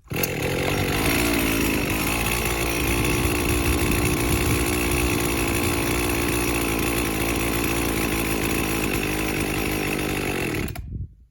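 Two-stroke chainsaw running at a steady, high speed, then stopping abruptly near the end.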